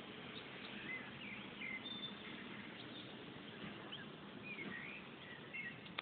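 Small birds calling in the tree canopy: short, scattered chirps and quick squeaky pitch glides, several in a row, over steady background noise.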